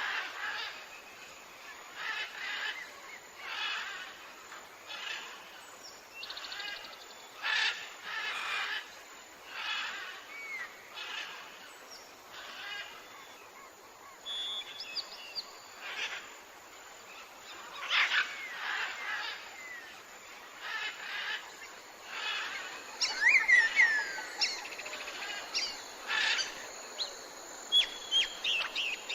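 Jungle soundscape of bird calls: short calls repeat about once a second, with a flurry of quick whistled chirps in the last third.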